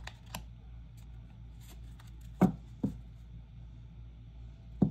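Oracle cards being handled between readings, with a few taps and knocks against a surface. The loudest comes about halfway through, followed closely by a second, and another comes near the end, over a steady low hum.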